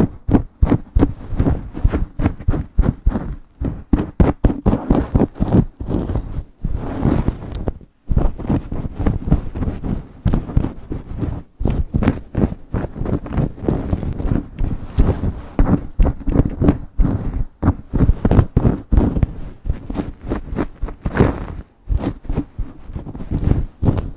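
Long fingernails scratching and rubbing fast through hair and over the scalp, in quick, irregular strokes.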